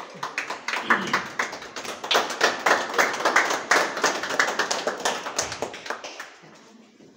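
A small group of people clapping their hands in applause, dying away about six seconds in.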